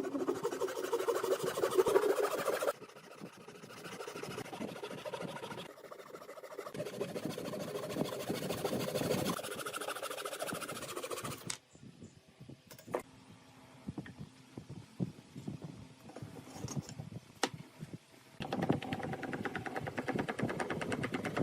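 Wood being worked with a tool in several runs of a few seconds each. A quieter stretch in the middle holds scattered sharp clicks and taps.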